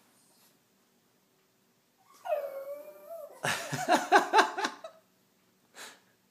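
A pug trying to howl: a short, wavering whine starts about two seconds in, then breaks into a louder, stuttering run of choppy howl sounds for about a second and a half.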